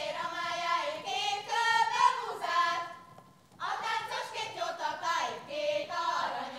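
A group of girls and young women singing a Hungarian folk song together, in two phrases with a short breath between them about three seconds in.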